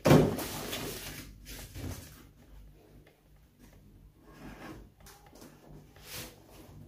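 A cardboard parcel being handled and cut open with scissors: a sharp thump at the start, then quieter scraping, rustling and snipping at the tape.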